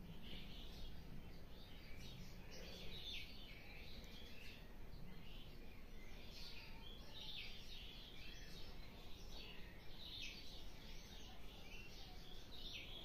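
Faint birds chirping: short high chirps repeating irregularly, about one a second, over a low steady background hum.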